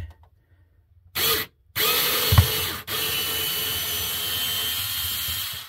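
Small battery-operated drill-driver unscrewing a screw from a refrigerator's plastic centre shelf rail. A short burst of the motor about a second in, then a steady run of about four seconds with a brief stop near the middle and a single knock a little before it.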